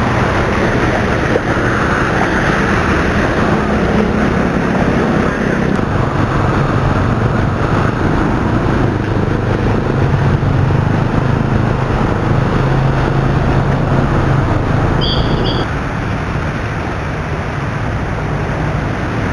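Road traffic in floodwater: vehicle engines running over a steady wash of noise, with a brief high tone about fifteen seconds in and the noise easing a little just after.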